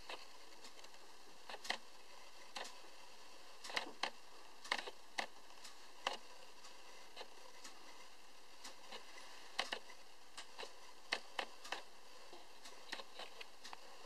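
Handling noise: scattered light clicks and taps at irregular moments over a steady faint hiss.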